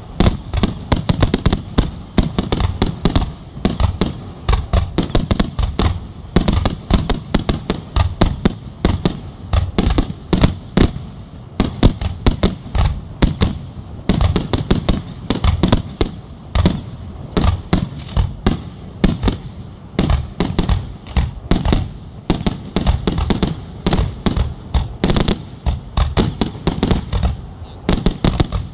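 Aerial fireworks fired in rapid succession: an unbroken barrage of sharp bangs, several a second, as shells launch and burst overhead.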